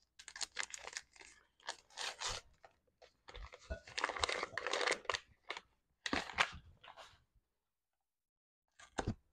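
Instant pudding mix packets being torn open and crinkled, an irregular rustling and crackling for about seven seconds. A short pause follows, then a couple of light knocks near the end.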